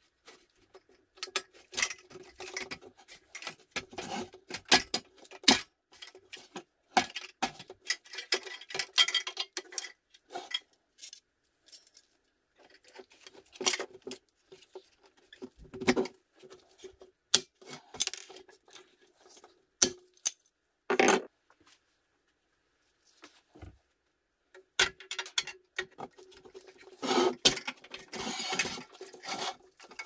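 Parts of a toy bulldozer being handled and fitted together by gloved hands: irregular clicks, knocks and scraping of plastic and metal pieces against each other and the work mat, with short pauses.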